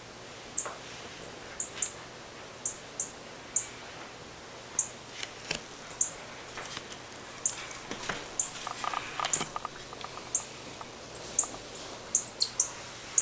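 Small birds chirping: short, very high single chirps repeated irregularly, roughly one or two a second, with a few softer, lower notes around nine seconds in.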